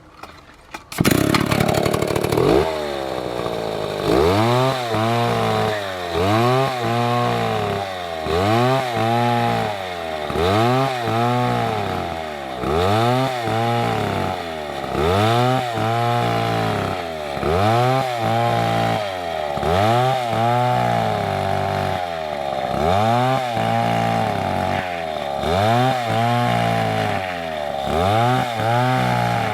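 Chainsaw engine starting up loud about a second in, then running with its pitch dropping and climbing back about every two seconds, a repeated cycle of load and revving.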